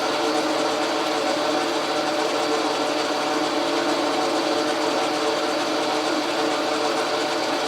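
Logan metal lathe running steadily under power: an even motor and gear-train hum with a constant whine.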